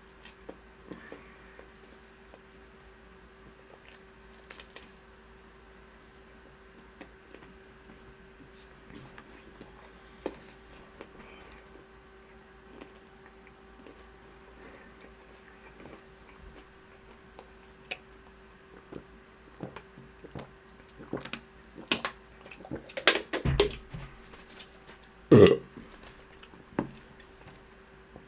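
A person eating fast, with soft chewing and small mouth and food clicks. Louder eating noises come near the end, and a short burp about 25 seconds in is the loudest sound.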